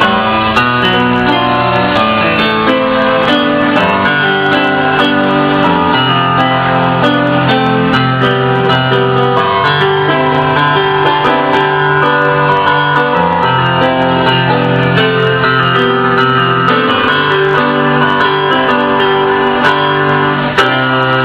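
Instrumental music played on a portable electronic keyboard: a melody over sustained chords and bass notes that change every second or two.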